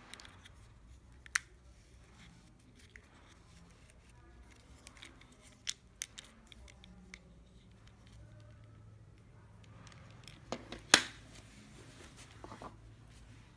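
A round plastic split-shot dispenser being handled and its lid turned to free a lead shot: soft rubbing with scattered sharp clicks, the loudest near the end.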